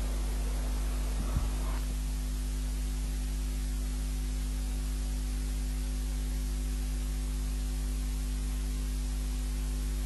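Steady electrical mains hum with a faint hiss, a low buzz with a few fixed overtones. A faint background sound underneath stops about two seconds in, leaving only the hum.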